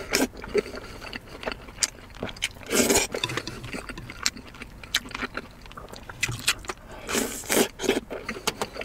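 Close-up eating of red-braised pork belly: wet chewing and lip-smacking with many short clicks, and two louder slurps about three seconds in and around seven seconds as fatty meat is sucked into the mouth.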